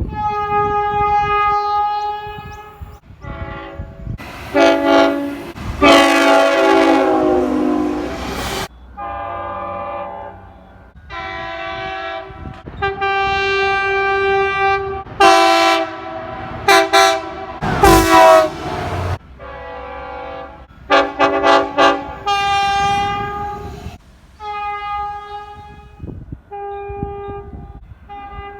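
Train horns sounding a series of long and short blasts, several different horns in turn. In a couple of the blasts the chord slides down in pitch as the train goes by.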